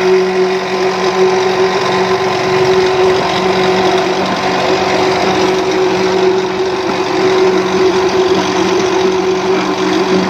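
Three-phase electric induction motors driving self-priming centrifugal water pumps, running with a steady hum that holds one pitch throughout. The pump in view is still priming, its outlet not yet discharging water.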